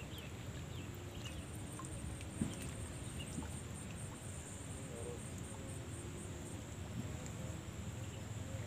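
Insects shrilling steadily with a rhythmic pulsing chirp over it, with short bird chirps here and there and a low wash of outdoor noise. A single sharp knock about two and a half seconds in.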